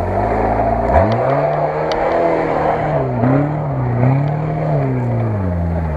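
Lada Niva's engine revving under throttle off-road: the pitch jumps up sharply about a second in, rises and falls a few times, then eases back down near the end.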